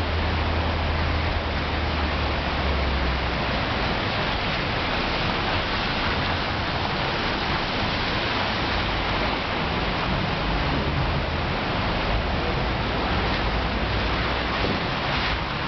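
Heavy rain falling steadily, a loud even hiss, with cars passing through standing water on the road now and then, adding a low rumble and splash.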